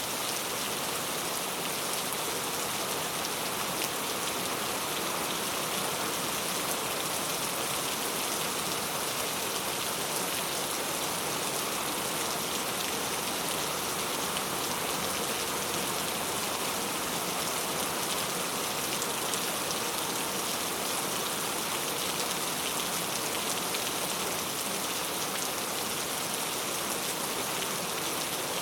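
Rainforest rain falling steadily, an even hiss of many drops at a constant level.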